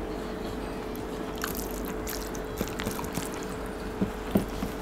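Rice being mixed with sambar by hand on a steel plate: soft wet squishes and a few small ticks of fingers against the plate, over a faint steady hum.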